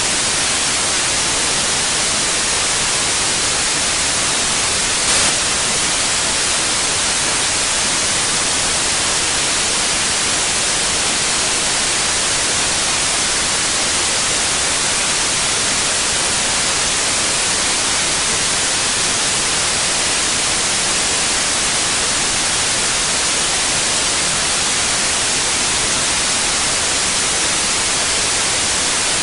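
Steady white noise, an even hiss weighted toward the high end, with one brief click about five seconds in.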